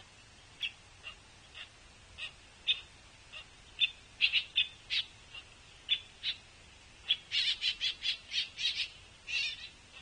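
Juvenile pileated woodpecker begging: short hoarse calls repeated at irregular intervals, then a rapid run of calls about seven seconds in.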